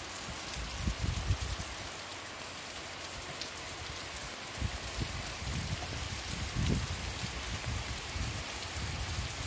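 Heavy rain falling steadily on wet brick paving and grass, an even hiss, with irregular low rumbling bumps, more in the second half.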